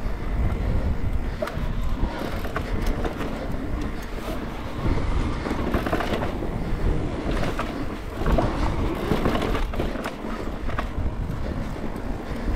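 Mountain bike riding down a dry, rutted dirt singletrack: tyres rolling over dirt and loose rocks, with the chain and frame rattling. Under it runs a steady low rumble, with frequent sharp clicks and knocks from the bumps.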